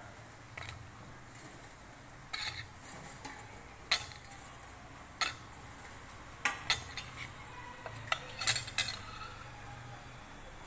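Steel ladle clinking and knocking against a steel pot as fried gulab jamuns are added to sugar syrup. The clinks are sharp and irregular, about ten of them, bunched more closely in the second half.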